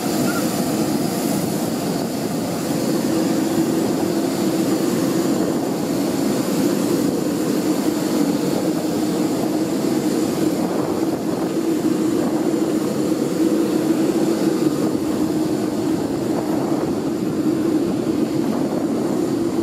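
Steady drone of jet aircraft noise, with a faint high whine held throughout.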